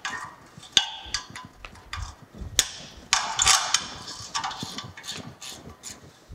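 Steel wrenches clicking and clinking on the bolts of a cast-iron forge-pot flange as the bolts are worked loose. A denser rasping run of clicks comes about three seconds in.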